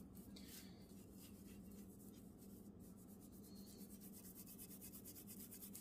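Faint, quick, even strokes of a cloth rag rubbing polish over a headlight housing, clearer in the second half.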